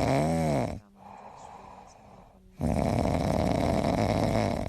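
A pet snoring loudly in two long rasping breaths of about two seconds each, with a quieter pause between them. A short rising-and-falling whine sounds at the start of the first breath.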